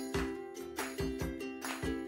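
Background music: a light tune of short plucked notes over a steady beat.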